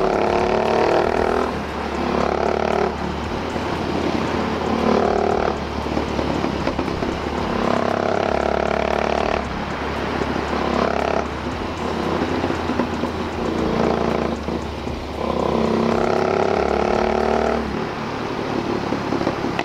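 Motorcycle engine running steadily during a ride, picked up by a helmet-mounted camera, its note shifting every second or two.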